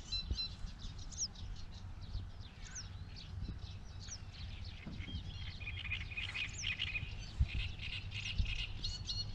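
Songbirds chirping and twittering, many short calls and several quick falling whistles, busier in the second half, over a steady low rumble.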